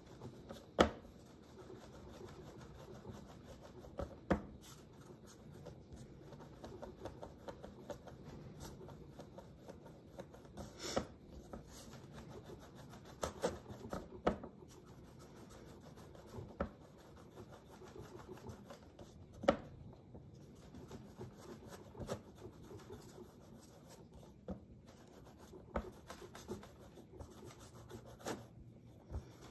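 Faint soft rubbing as a coil of clay is rolled back and forth under the palms on a board, with occasional light knocks against the board.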